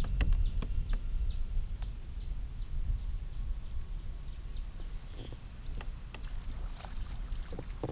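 Outdoor ambience on a kayak: a steady low rumble of wind on the microphone, with faint scattered ticks as a spinning reel is cranked and a thin steady high whine in the background.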